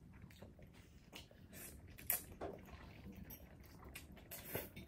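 Quiet eating sounds of people eating spaghetti with forks: soft chewing and mouth noises with scattered small clicks, a sharper one about two seconds in and another near the end.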